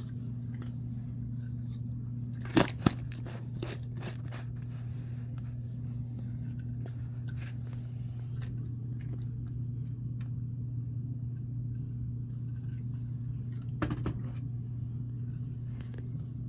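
Cat eating from a small dish: faint chewing and licking with scattered sharp clicks, the loudest two about two and a half seconds in and a few more near the end, over a steady low hum.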